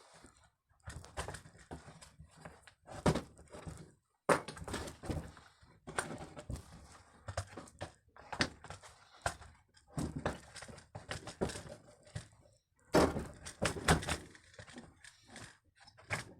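Irregular clicks, knocks and rattles of chainsaw parts and hand tools being handled as a Stihl MS 181 chainsaw is taken apart, with a denser run of knocks about thirteen seconds in.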